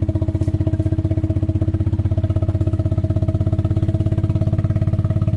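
A small engine running steadily with an even, rapid pulse.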